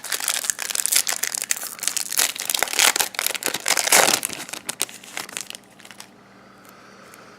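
Plastic trading-card pack wrapper being torn open and crumpled: dense, fast crinkling for about five seconds that thins out and stops near the end.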